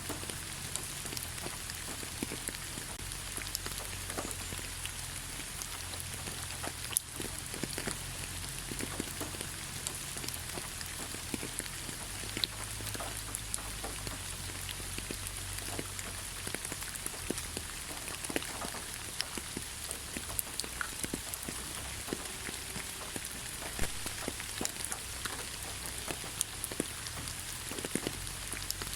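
Soft rain falling on leaves: a steady patter of many small scattered drop taps over an even hiss, with one sharper tap about seven seconds in.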